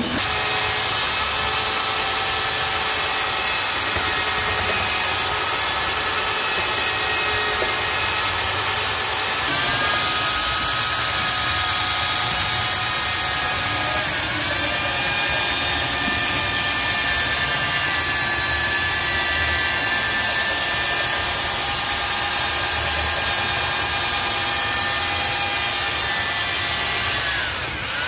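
Corded electric paddle mixer running steadily in a bucket, stirring powdered tile adhesive into water. Its motor whine drops in pitch around ten and fourteen seconds in as more powder goes in, and it slows briefly near the end.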